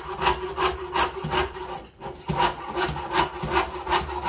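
Jeweler's saw blade cutting through sheet metal in quick, even back-and-forth strokes, about three a second, with a short pause about two seconds in.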